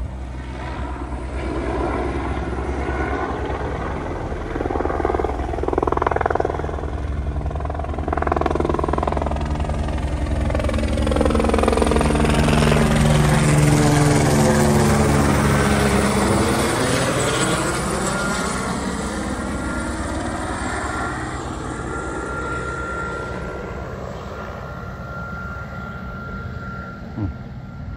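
Spray helicopter flying low, its rotor beating steadily and growing louder as it passes overhead about halfway through, then fading with a falling pitch as it moves away.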